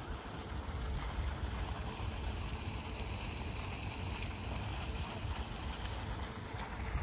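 Small fountain jet splashing steadily into a pond, with wind rumbling on the microphone.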